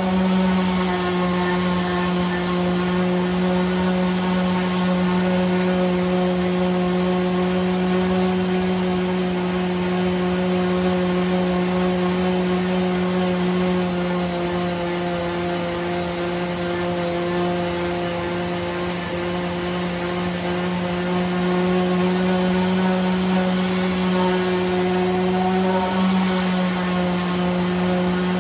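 Random orbital sander running steadily as it sands the flat panels of an old wooden door, with a constant motor hum and a high, even hiss from the paper on the wood.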